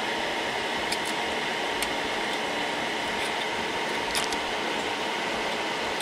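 Steady fan noise with a faint steady whine. A few light clicks come from the metal CPU socket hardware as it is handled.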